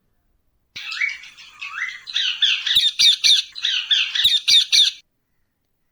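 Parrot squawking and chattering: a quick run of short, harsh calls that starts about a second in, grows louder toward the middle and stops about a second before the end.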